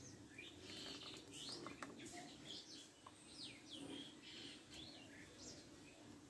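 Faint bird chirps, many short high calls scattered through a near-silent background.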